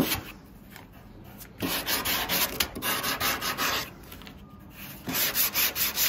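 Wet sanding by hand: wet-and-dry sandpaper on a cork block rubbed quickly back and forth over the filled epoxy repair on a windsurf board's nose, to fair the curve back in. Rapid rasping strokes come in runs, with a pause of over a second just after the start and another after the middle, then strokes again near the end.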